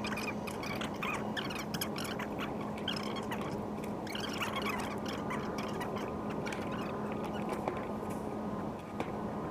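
Small plastic and metal parts of an HO-scale model locomotive clicking and squeaking as they are handled and fitted by hand, many light clicks spread through, over a steady low hum.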